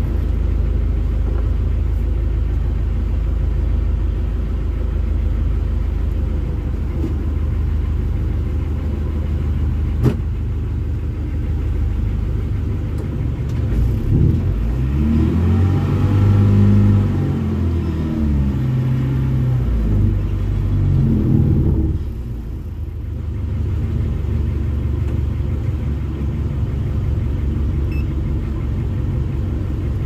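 Fishing boat's engine running with a steady low drone. Near the middle its tone rises and falls in pitch over several seconds, then it settles back to the steady drone.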